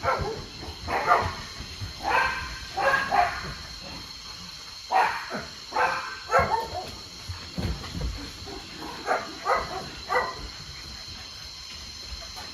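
Dogs barking in short, irregular bursts, a dozen or so barks in small clusters, thinning out after about seven seconds.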